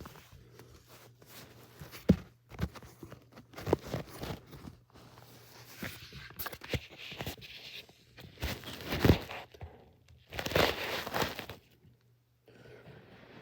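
Irregular rustling, scraping and knocking of things being moved and handled, with one sharp knock about nine seconds in and a longer rustle just after.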